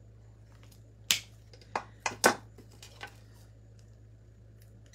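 Scissors snipping eucalyptus stems: a handful of sharp clicks in the first three seconds, the loudest a little past two seconds in.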